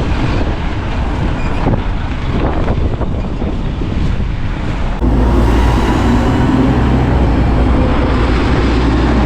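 Strong wind buffeting the microphone, with rain, as a cyclist rides or pushes through a storm. About five seconds in, a steadier, deeper rumble joins and holds.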